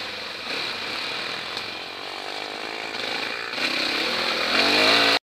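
Dirt bike engine running on a trail ride, steady at part throttle, then revving up and getting louder from about three and a half seconds in, before the sound cuts off suddenly.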